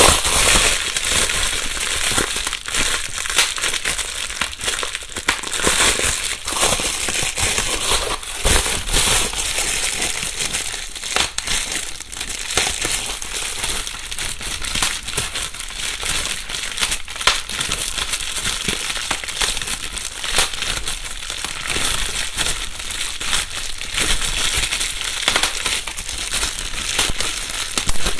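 Plastic bubble wrap being crumpled and handled, with continuous rustling and many sharp pops and crackles from bursting bubbles, in a binaural recording.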